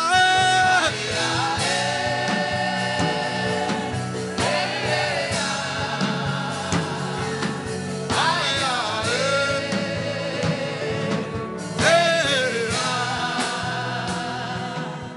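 Gospel worship singing over instrumental backing: long held sung notes with vibrato, slowly fading near the end.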